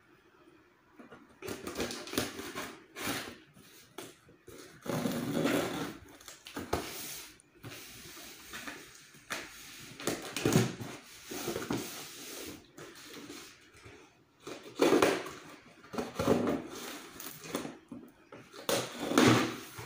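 Scissors slitting packing tape on a cardboard box, with the scrape and rustle of the cardboard box being handled and turned on a table: irregular bursts of scraping and tearing.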